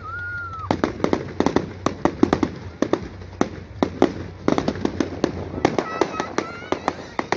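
Fireworks display: a rapid, irregular run of sharp cracks and bangs. A short whistling tone sounds at the start and again about six seconds in.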